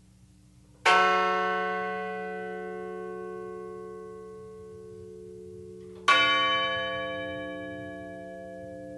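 A memorial bell tolled twice, about five seconds apart, each stroke ringing out with many overtones and slowly fading.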